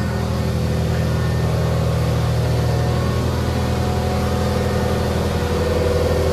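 A John Deere garden tractor's engine running steadily while the tractor is manoeuvred into place.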